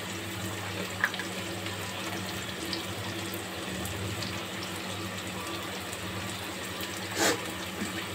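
Onion-tomato masala sizzling steadily in hot oil in a pan, with a low steady hum underneath and a single short knock near the end.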